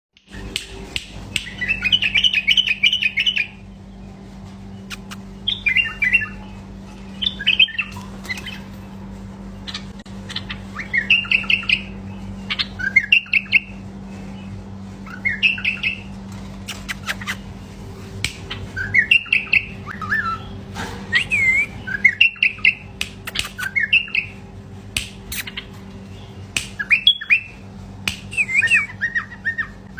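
Male bulbul singing: short warbled phrases repeated every second or two, the first a longer fast chattering run. Scattered sharp clicks and a steady low hum run underneath.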